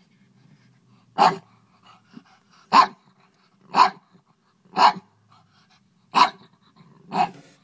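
Pug barking six times in short single barks about a second apart, which the owner takes for jealousy at the pet rat being given cheese.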